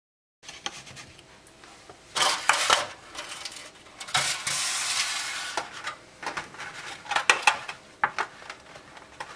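Aluminium flan mold and a clear plastic clamshell container handled on a countertop: irregular crackling clicks of the thin plastic and light knocks of the tin, with a longer rubbing sound about halfway through.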